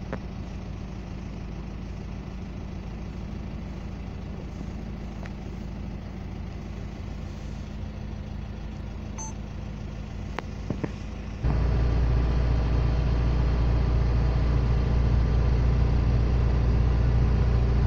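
Vehicle engine and road noise heard from inside the cabin in slow traffic, a steady low hum. About eleven seconds in it abruptly becomes a much louder low rumble.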